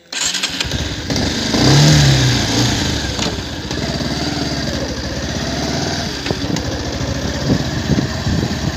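Bajaj Pulsar 150's single-cylinder engine revving up as the motorcycle pulls away about two seconds in, then running steadily under way.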